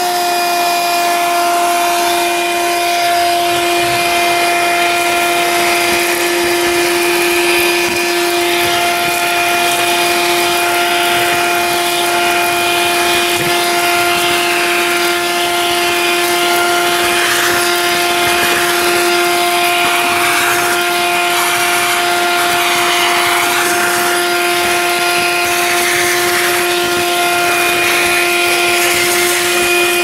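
Black & Decker PD1200AV car vacuum cleaner running steadily with a constant whine while its brush nozzle sucks over a rubber floor mat. Small stones rattle now and then as they fly through the hose.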